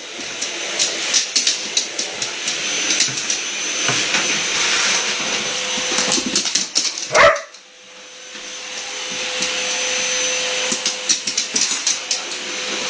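Vacuum cleaner running while a dog barks at it and goes for it. One sharp loud bark comes about seven seconds in, and the running noise is dotted with quick clicks and knocks throughout. Just after the bark the vacuum noise drops away, then swells back up over a couple of seconds.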